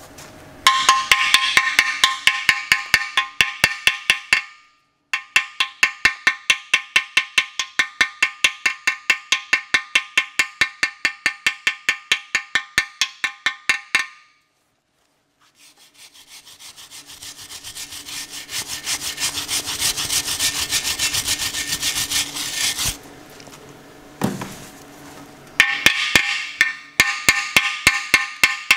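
Rapid hammer blows on the cast iron block of a Chrysler 361 big-block engine, struck on a fresh flux-core weld over a freeze crack. Each blow rings, about four or five a second, in long runs. In the middle the hammering gives way to a noise that swells for several seconds and then stops.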